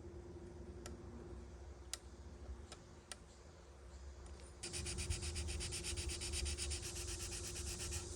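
A few light clicks, then from about halfway a steady, fast rubbing of a plastic model part being sanded, over a faint steady hum.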